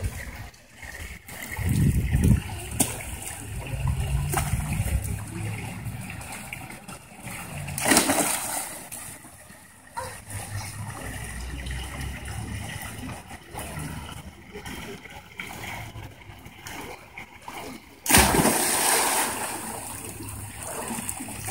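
Water splashing and sloshing in a swimming pool, with a loud splash about eight seconds in and a longer spell of louder splashing near the end.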